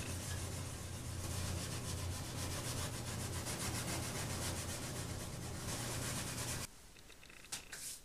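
Steel wool scrubbed back and forth over a charcoal-sprayed fish replica, a continuous scratchy rasp in quick strokes, to bring out the scale detail and fin rays. A low steady hum runs under it, and both cut off suddenly near the end.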